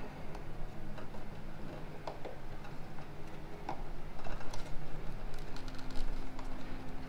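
Scattered light clicks and taps of hard plastic as hands handle a truck tail light housing and its bulb sockets.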